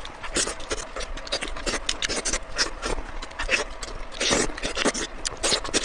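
Close-up eating sounds: chewing with wet mouth clicks and smacks, irregular and several a second.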